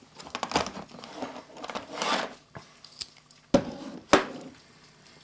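Rustling and scraping as tools are handled in a plastic tool case, then two sharp knocks about half a second apart as a heavy chrome hand-lever hole punch is brought down onto the workbench mat.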